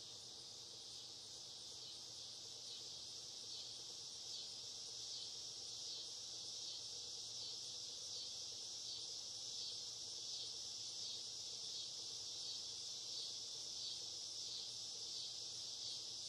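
Steady, high-pitched chorus of insects trilling, growing slightly louder over the first few seconds.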